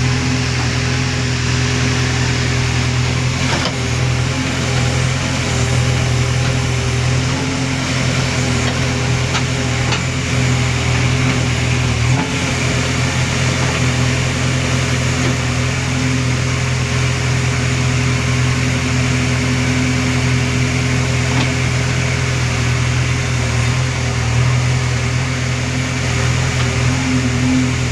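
Diesel engine of a JCB machine running steadily at a constant speed, a low even hum with no revving.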